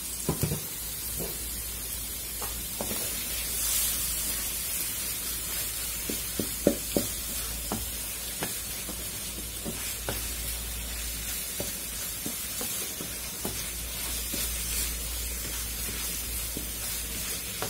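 Sliced onions, garlic, ginger and dried chillies sizzling in oil in a metal karahi, with a steady hiss. A spatula scrapes and knocks against the pan as they are stirred, with a few sharper knocks about six and a half to seven seconds in.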